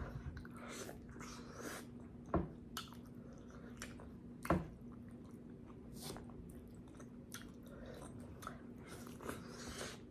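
A person chewing and smacking mouthfuls of corn and potatoes close to the microphone, with many small wet clicks and two louder smacks a couple of seconds apart. A faint steady hum sits underneath.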